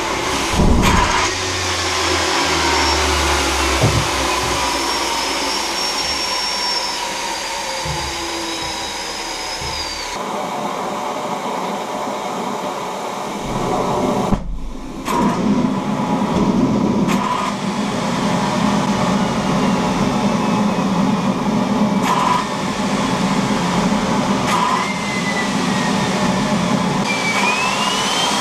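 TS-20B aircraft turbostarter (a small gas turbine) being spun on its test stand during gas-fired start attempts: a steady rushing whir with a turbine whine that falls in pitch over the first several seconds, and a second whine that climbs sharply near the end. Ignition from the blowtorch flame catches poorly.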